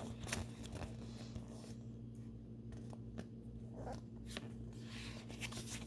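Faint rustling and light clicks of Pokémon trading cards and a foil booster-pack wrapper being handled, over a steady low hum.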